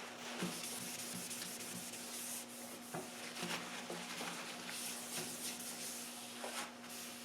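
Irregular scratchy rubbing as wet caulking sealant is wiped and scrubbed off the panel with brick cleaner, over a steady low hum.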